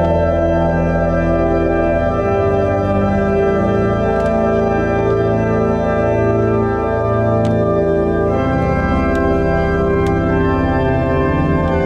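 Church organ playing slow, sustained chords over a held deep bass, the chords shifting every second or two.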